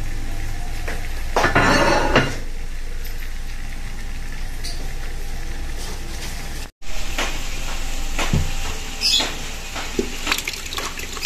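Kitchen handling sounds: a noisy scrape about a second and a half in over a low steady hum. Later, a run of short knocks and clinks of a spoon and glass blender jar as thick cooked tomato sauce is scooped into the jar.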